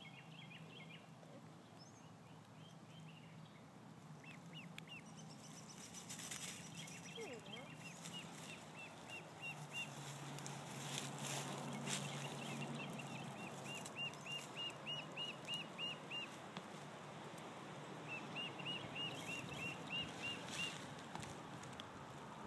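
A lone duckling peeping in runs of short, high calls, about four or five a second, in several series from about nine seconds in: calling for its siblings. A few brief rustles come in between.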